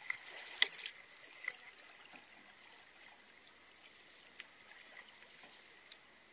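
Water trickling and washing along a small paddled outrigger canoe, with a few sharp knocks in the first second and a half and two faint ticks later on.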